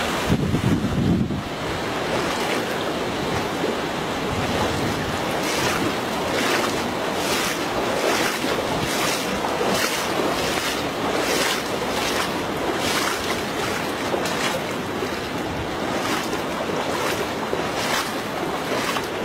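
Someone wading through shin-deep floodwater, legs swishing through the water at walking pace, about one splash every three-quarters of a second. Wind buffets the microphone, strongest in the first second or so.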